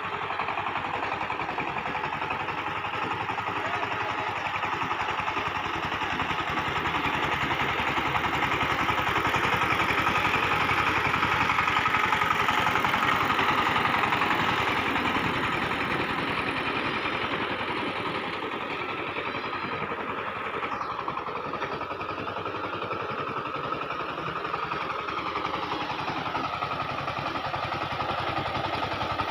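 SIFANG 20-horsepower single-cylinder diesel power tiller running under load as it churns and puddles a flooded paddy with its blades. It grows louder as it passes close by, about halfway through, then drops back as it moves away.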